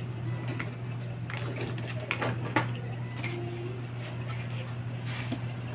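Scattered light clicks and clinks of the opened Epson printer's plastic and metal parts being handled during reassembly, over a steady low hum.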